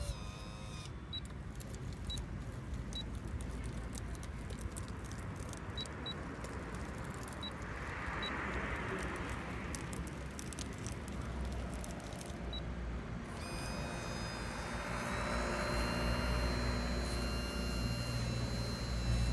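Radio-controlled hydraulic excavator working its arm and bucket in sand: a steady low hum under a thin high whine from its hydraulic pump. The whine drops out about a second in and comes back about two-thirds of the way through, and there are two swells of hiss.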